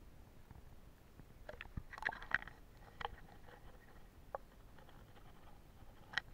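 Faint, muffled clicks and taps with a low rumble, heard through an action camera's sealed waterproof case as it is dipped and held underwater in a shallow stream: water and handling noise against the housing, a cluster of clicks about two seconds in and single taps later.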